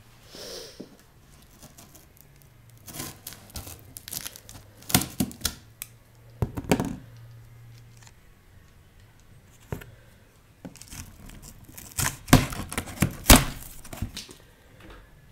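Cardboard box being torn open: several short rips of packing tape and cardboard, with the loudest rips coming near the end.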